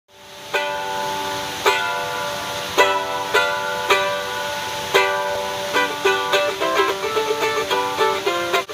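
Mandolin played solo. Chords ring out roughly a second apart, then from about six seconds in a quicker run of picked notes follows, over the steady rush of a waterfall.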